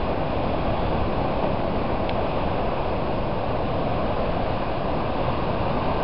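Steady roar of typhoon wind and heavy surf breaking on the shore, the wind buffeting the microphone into a low, even rumble.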